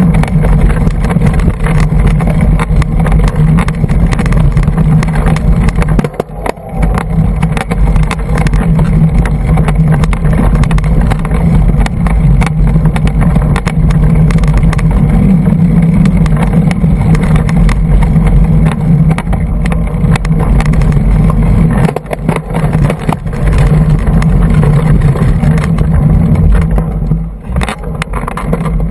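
Loud, continuous wind buffeting on the microphone mixed with rattling and knocking from a hardtail mountain bike riding fast over rough singletrack, heard from a GoPro in its housing; it eases off briefly twice.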